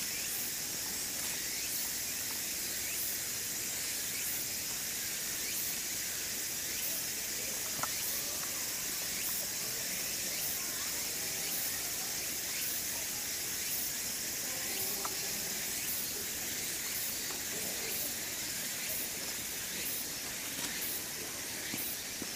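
Cicadas buzzing in a steady, dense high-pitched hiss, with a faint regular pulse over it a little more often than once a second.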